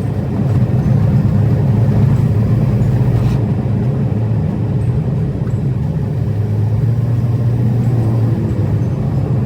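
A car running, a steady low rumble.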